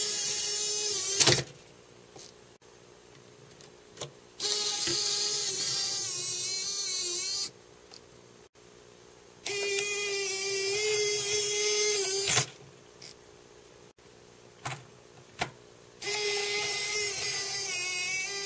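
Canon ZR40 MiniDV camcorder tape-deck mechanism cycling under its own motor: four runs of small-motor whirring and gear whine, each lasting one to three seconds, separated by quiet gaps. There is a sharp click where the first run stops and lighter clicks at some of the others.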